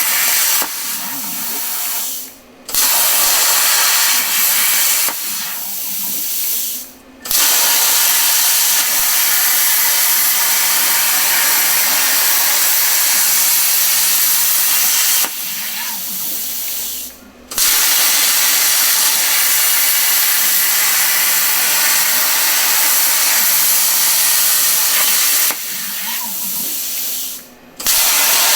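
Plasma cutter cutting steel on a CNC table: a loud, steady hiss that several times drops to a softer hiss, stops for a moment, and then starts again at full strength, as the torch finishes one cut and begins the next.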